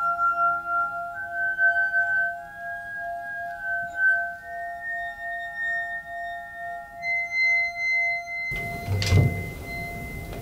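Music of long, sustained glass-like ringing tones that pulse with a slow beat, a few held notes stepping slowly upward over a steady lower tone. Near the end there is a single low thump.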